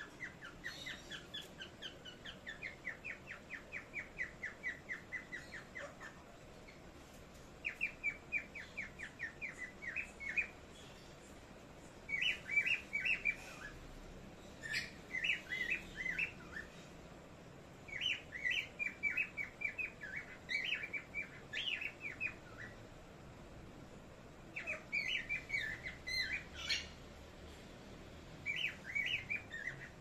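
Small pet parrots chirping: trains of short, quickly repeated calls, about five a second, then bursts of warbling chatter, coming in spells of a few seconds with short pauses between.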